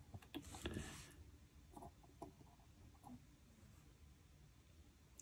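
Near silence with a few faint light clicks and taps from a soldering iron and fingers on a model locomotive's metal chassis, most of them in the first second.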